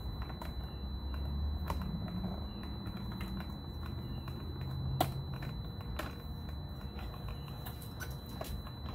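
Scattered small clicks and taps of hands handling the plastic and metal parts of a motorcycle's GPS cradle, with one sharper click about five seconds in, over a low steady rumble.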